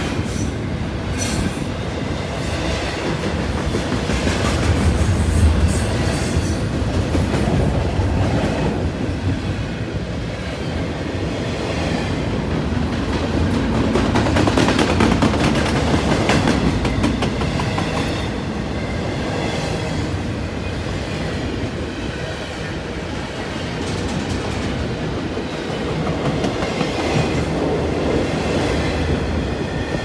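Double-stack container cars of a CN freight train rolling past: a steady rumble of steel wheels on rail with clickety-clack over the rail joints, swelling and easing in loudness as the cars go by.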